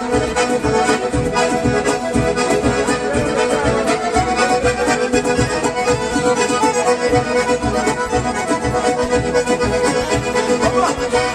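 Recorded bandinha dance music led by accordion, with bass and drums keeping a steady beat.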